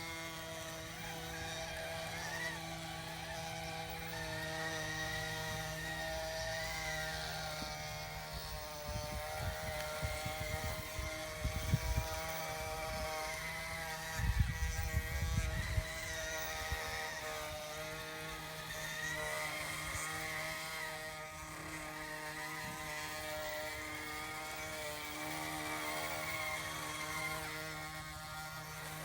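Radio-controlled construction models running: a steady engine-like hum with a higher whine that rises and falls with throttle, and two spells of low rumble around the middle.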